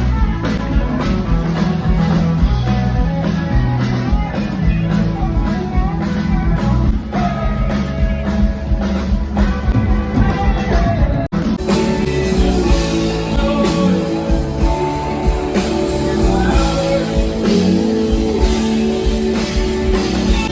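Live rock band playing, with singing, guitar and a steady drum beat. There is an abrupt cut to another stretch of the performance about eleven seconds in.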